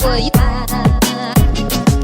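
Hip hop music with a steady beat of deep, falling kick drums and a vocal line.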